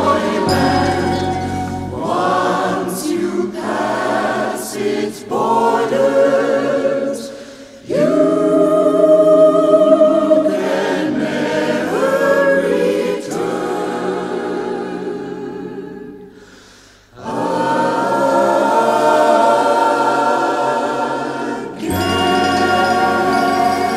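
Background music: a choir singing a slow gospel-style song. The music fades out and starts again twice, about eight and seventeen seconds in.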